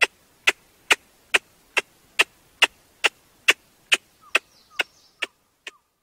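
A regular series of sharp clicks, a little over two a second, growing fainter near the end.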